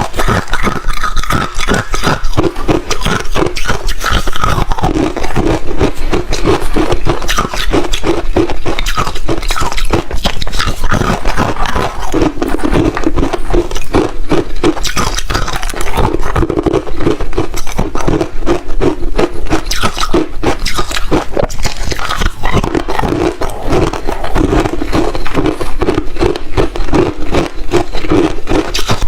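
Ice being bitten and chewed close to the microphone: a continuous run of loud, crackly crunches in a steady chewing rhythm.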